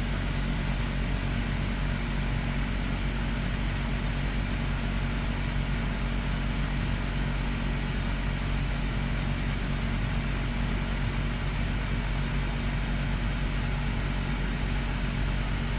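A steady, unchanging low mechanical hum under a broad hiss.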